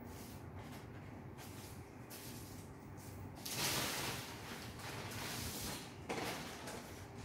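Plastic bag rustling loudly for a couple of seconds from about halfway through, after a few light clicks of plastic cassette cases being handled.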